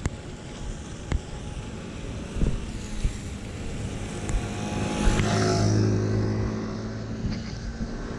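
A motor vehicle passes on a wet street: engine hum and tyre hiss build to a peak about five to six seconds in, then fade away.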